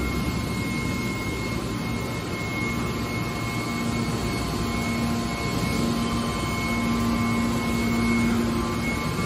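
Hydraulic scrap-metal baler's power unit (electric motor and pump) running steadily: a constant mechanical drone with a thin high whine over it.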